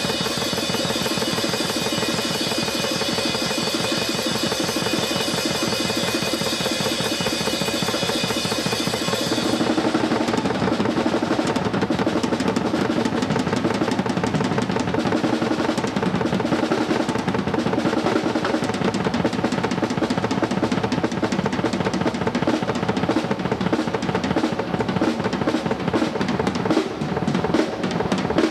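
Rock drum kit played fast and hard, a drum solo of rolls across the kit. Cymbals wash over the hits for about the first ten seconds, then drop back and the toms and bass drum carry on.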